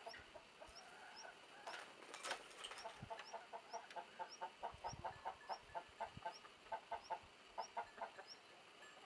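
Faint farmyard chickens clucking in a quick run of short notes, about four a second, with a thin high chirp repeating about twice a second.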